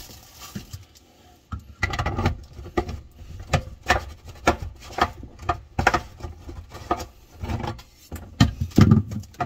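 Faucet mounting nut being unscrewed by hand from its shank under a kitchen sink: a run of clicks and knocks, about two a second, starting a second or two in.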